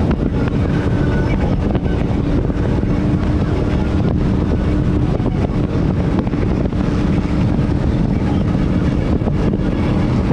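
28-foot Nordic Heat V-hull powerboat's engine running at cruising speed, a steady drone with wind rushing over the microphone, at about 4800–4900 RPM and near 70 mph.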